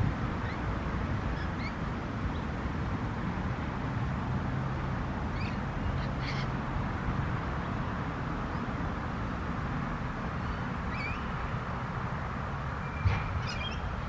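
Wind buffeting the microphone in a steady low rumble, with a few short, faint bird calls scattered through it and a slightly louder call near the end.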